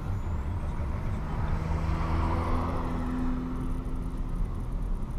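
Fiat Toro 1.8 Flex pickup under way, heard from inside the cabin: the engine running steadily with a low road and tyre rumble.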